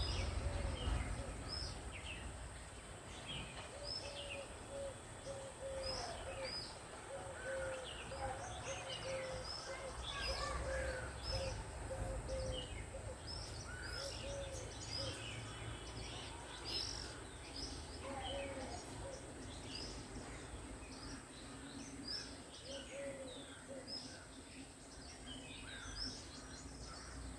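Birds calling: many short, high chirps scattered throughout, with a series of short, repeated low call notes. Over it runs a steady high hiss and a low rumble.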